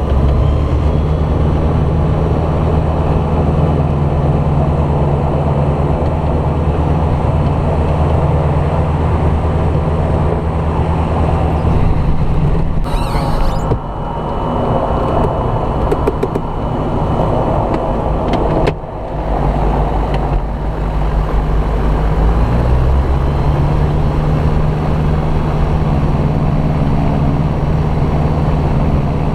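Light aircraft's piston engine and propeller droning, heard from inside the cabin. The pitch shifts about three-quarters of the way through as the engine speed changes, and the sound cuts out briefly twice in the middle.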